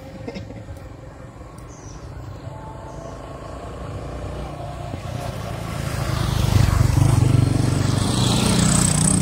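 A small motorcycle's engine running on the road, growing louder as it approaches and loudest about two-thirds of the way through, then staying close.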